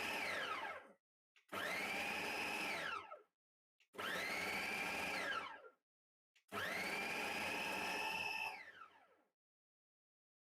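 Electric food mixer motor run in four short pulses, each spinning up, running a second or two and winding down, as it works the scone dough together. There is dead silence between the pulses.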